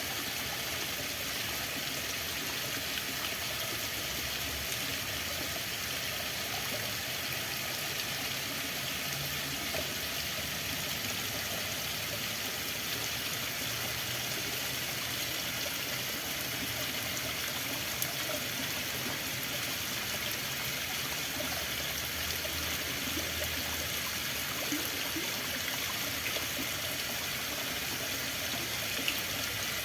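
Running water: a steady, unbroken rush of flowing water, with a couple of faint ticks about two-thirds of the way in and near the end.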